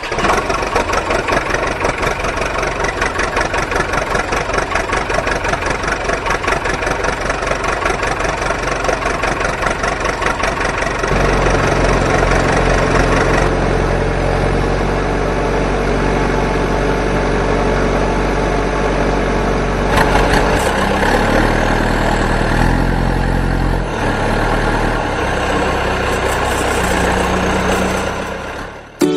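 Tractor engine sound, first with a fast, dense chugging, then from about eleven seconds in a steadier, deeper engine drone whose pitch shifts a few times in the last few seconds.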